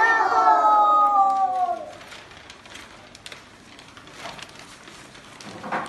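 A child's voice holding one long drawn-out call that slowly falls in pitch, ending about two seconds in, followed by a low background with faint scattered taps.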